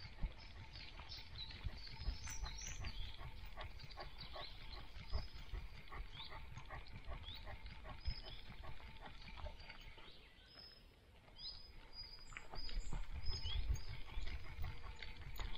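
A dog sniffing and snuffling close to the microphone while it noses around on the forest floor, with rustling underfoot and small birds chirping. The sniffing pauses briefly just after the middle and gets louder near the end.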